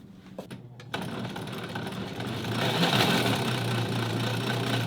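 Vintage sewing machine's electric motor running under the foot pedal, a steady whirring hum that grows louder a little past two seconds in and stops at the end, showing the rewired pedal now works. A couple of light clicks come just before it starts.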